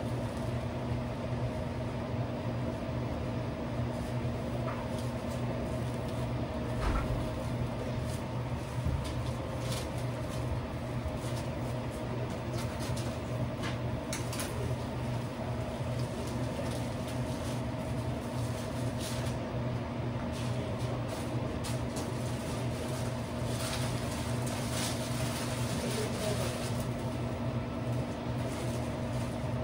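Steady mechanical hum of sandwich-shop equipment, with scattered light rustles and clicks of a sandwich being made and wrapped.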